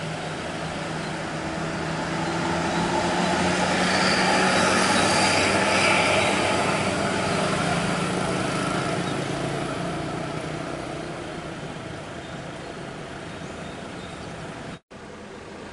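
Large diesel coach bus driving past, its engine and tyre noise growing louder to a peak with a hissing rush, then fading as it moves away. The audio drops out for an instant near the end.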